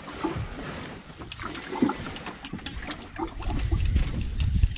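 Sea water lapping and splashing against the side of a small fishing boat, with scattered light clicks from the rod and reel as the angler fights a heavy fish. A low rumble grows about three and a half seconds in.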